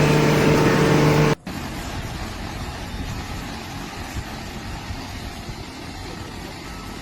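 A loud, steady pitched tone that cuts off abruptly after just over a second, followed by a steady low mechanical rumble, like a vehicle engine running.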